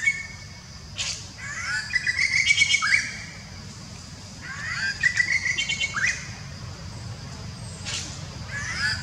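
A songbird singing the same phrase over and over: a run of rising notes that settles into a held note and ends with a quick upsweep, repeated about every three and a half seconds.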